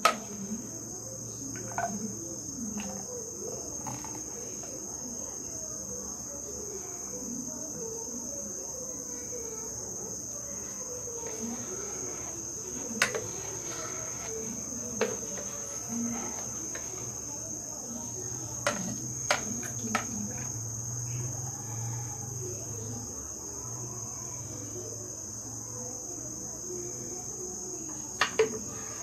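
Blended cold coffee being poured from a mixer jar into glasses, with a few sharp clinks of jar or glass. A steady high-pitched whine runs underneath.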